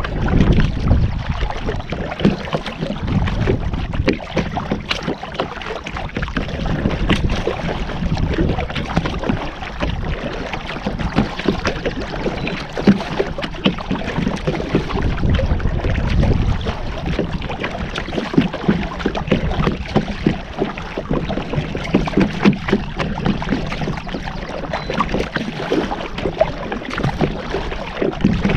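A kayak being paddled: water splashing and dripping with small irregular knocks, with wind rumbling on the microphone.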